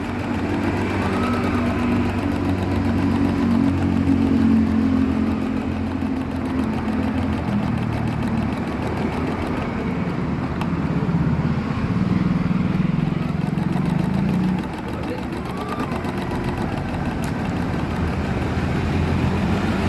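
Butterfly X60 portable computerized embroidery machine running and stitching with a steady mechanical hum. The hum drops in pitch about a third of the way in and falls in level about three-quarters of the way through.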